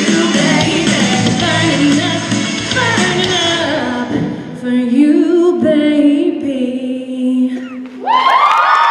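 Group singing over a full backing track, which thins out about four seconds in to a long final held note. The song ends about eight seconds in and a crowd breaks into loud cheering and screaming.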